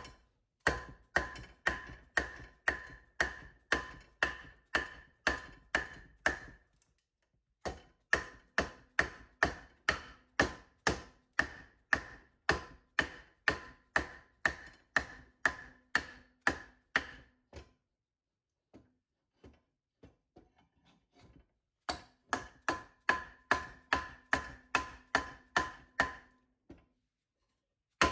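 Dead blow hammer beating a log down onto an old axe blade clamped in a bench vise, splitting the wood. Fast, even blows about three a second, with a metallic ring that carries through each run, broken by three pauses, the longest about four seconds.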